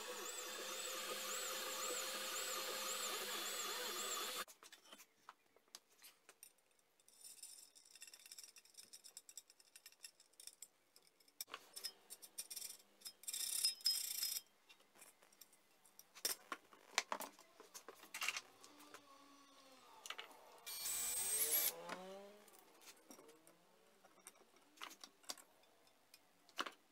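Creality Ender 3D printer running, its fans humming while the stepper motors whine in wavering tones as the print head moves; it cuts off after about four seconds. Then steel tubes and small parts are handled on a workbench, with scattered clicks and metal knocks and two louder noisy stretches.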